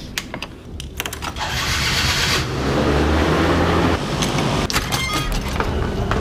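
A vehicle running, its low hum swelling in about a second in and then holding steady, with scattered rattles and clicks.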